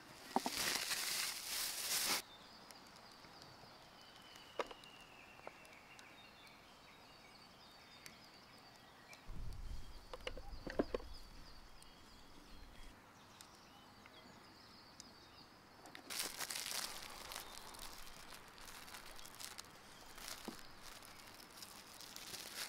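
Clear plastic bag crinkling and rustling in two bursts, at the start and again near the end as small dried whitebait are shaken out of it by hand. Faint bird calls sound in the background, and a low rumble comes briefly in the middle.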